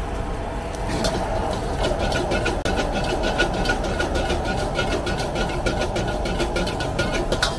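Metal wok ladle scraping and knocking against the wok several times a second while tossing fried rice, over the steady rush of a high-flame gas wok burner. The quick ladle strokes start about a second in.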